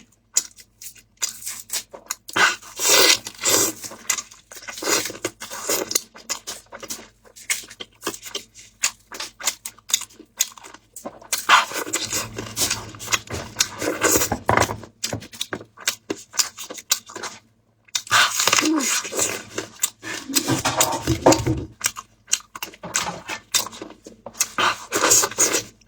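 Close-miked eating sounds: a person biting and chewing food, with wet mouth and lip noises and a run of crisp clicks and crunches.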